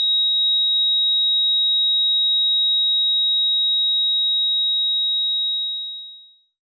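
A single steady high-pitched electronic tone, a film sound effect, held level and fading out near the end.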